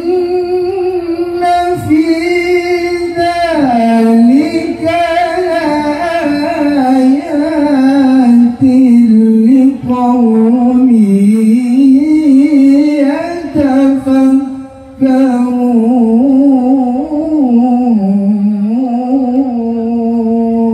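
A man chanting Qur'an recitation in the melodic tilawah style into a microphone: long held, ornamented notes that waver and slide in pitch, with a short breath pause about two thirds of the way through.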